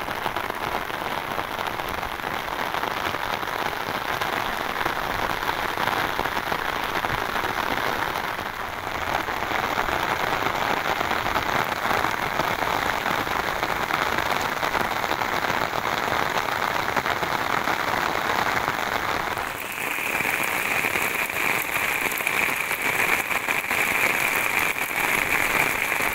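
Heavy rain pouring down in a steady, dense hiss. About three quarters of the way through, it changes to a brighter, sharper hiss.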